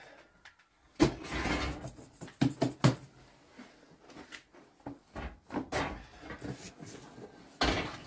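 Hands patting and slapping flatbread dough on a cloth, with soft irregular thumps and rustling of fabric. The sharpest knocks come about a second in, a cluster around three seconds, and again near the end.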